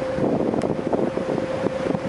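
Wind buffeting the microphone on a moving motor ship, over a steady hum from the ship's engine.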